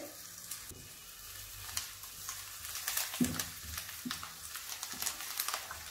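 Garlic mushrooms frying in a nonstick pan, stirred with a wooden spatula: a steady sizzle full of small crackles, with a couple of brief spatula scrapes about three and four seconds in.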